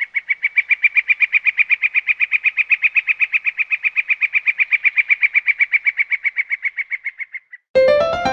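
A Xiaomi Mi1 stock ringtone made of rapid, even chirps, about eight a second, high-pitched and bird-like. It swells and then fades out. Near the end, the piano melody of the next ringtone begins.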